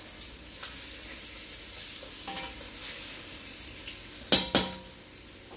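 Floured beef short ribs searing in hot oil in a Dutch oven over medium-high heat, a steady sizzle. A little past four seconds in come two sharp clacks a quarter second apart as metal tongs turn the ribs in the pot.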